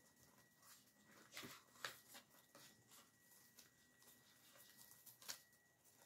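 Very quiet: faint rustling and a few soft clicks of ivy stems and leaves being handled and pushed into an arrangement, the clearest about a second and a half, two seconds and five seconds in, over a faint steady high tone.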